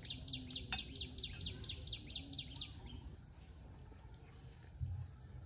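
Night insects: a steady high cricket trill, joined for the first half by a rapid series of short falling chirps, about five a second. A couple of light clicks come early on.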